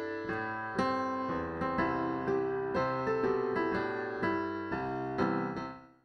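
Piano music, notes struck in a running pattern, fading out near the end.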